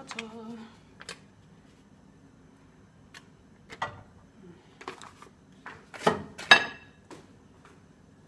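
Scattered clicks and knocks of a knife and butter on a plastic cutting board and a frying pan as butter is cut and dropped into the pan. About two-thirds through comes a short ringing metallic clink, the loudest sound.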